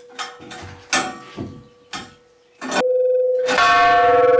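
Church bell in a bell tower being struck by hand. Several light strikes ring briefly, then about three seconds in come louder strikes whose tones ring on. The sound is loud.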